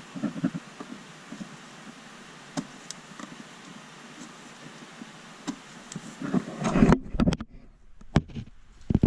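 Hands working on car parts: scattered knocks and sharp clicks, with a louder clatter of handling about two thirds of the way in and two crisp clicks near the end, as plastic connectors and cabling are fitted and clipped into place.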